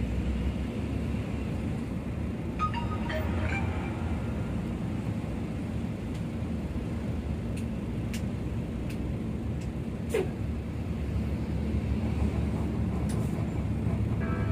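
Steady low rumble of engines and tyres in slow, congested traffic among heavy trucks.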